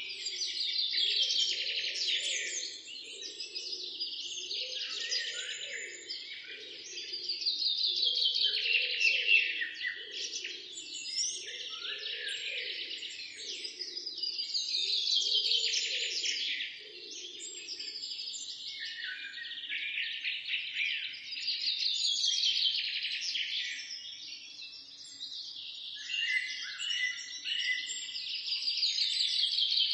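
A chorus of small songbirds chirping and singing without a break, growing louder and softer in waves every six or seven seconds. A lower note pulses under it about once a second through the first half.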